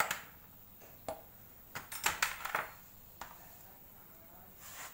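Metal hand tools clinking and clanking as they are put down and sorted in a loose pile: a sharp clank at the start, another about a second in, then a quick cluster of clinks around two seconds in.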